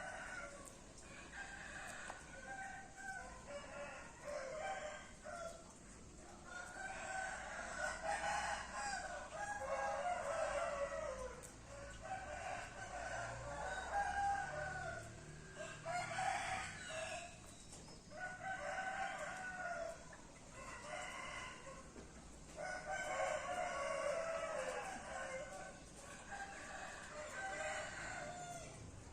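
Roosters crowing over and over, several calls overlapping one another.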